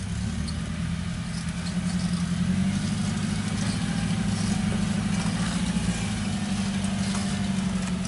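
Full-size Chevy 4x4 truck's engine running at low revs as it crawls over rocks, a little louder from about two seconds in.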